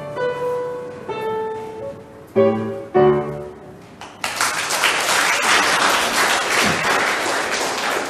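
Upright piano: a few last notes and two loud closing chords about two and a half and three seconds in. Then an audience applauds from about four seconds in, dying down a little near the end.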